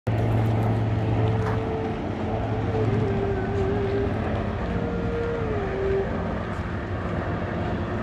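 A native instrument plays long held notes that step and glide down from one pitch to a slightly lower one a few times, over a steady rushing background noise.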